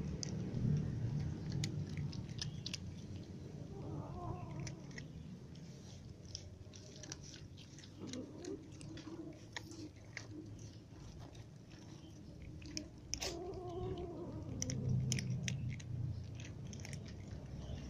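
Cats crunching dry kibble: a steady run of small, sharp crunches as they chew. A few brief wavering calls sound about 4, 8 and 13 seconds in.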